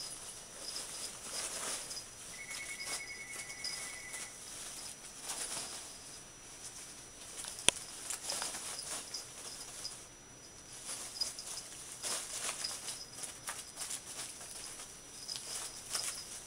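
Polystyrene packing peanuts rustling and squeaking in irregular bursts as a ferret burrows and thrashes through a pile of them. A short run of rapid high pips comes about two seconds in, and a single sharp click about halfway through.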